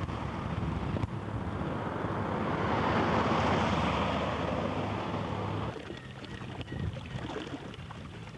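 Road traffic passing: a vehicle's tyre and engine noise swells to a peak about three to four seconds in and fades. Near six seconds in it cuts to softer wind noise on the microphone.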